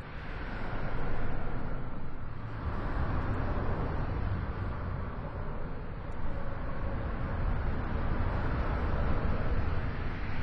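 Steady engine rumble with a rushing noise over it, growing louder about a second in and holding on.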